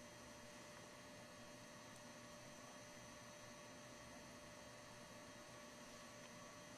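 Near silence: faint steady electrical hum and hiss of the recording's background.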